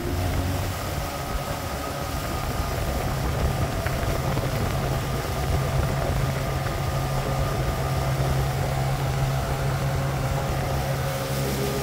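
Johnson 25 hp outboard motor running steadily with the boat under way, over a rushing hiss of wind and water.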